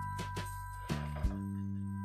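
Background music: held chords over a light, steady beat, with the chord changing about a second in.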